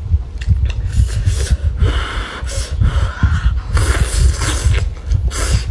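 Close-miked eating of rice noodles: a few hissing slurps, about two and four seconds in and again near the end, over continual chewing.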